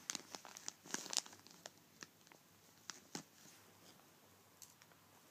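Clear plastic parts bag crinkling and crackling as it is handled, with sharp little clicks. The sounds come thick for about the first three seconds, then thin out.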